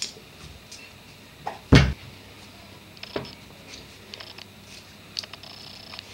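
A hamster is set down on a sheet of card and scrabbles over it: scattered light taps and scratches, with one heavy thump about two seconds in.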